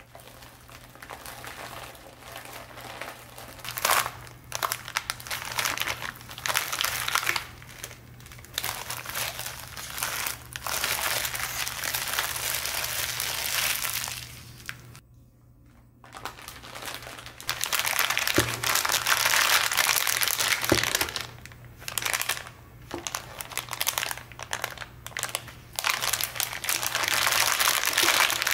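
Plastic packaging crinkling and rustling in irregular bursts as a grey plastic mailer and silvery zip-lock bags are unwrapped and handled, with a short pause about halfway through.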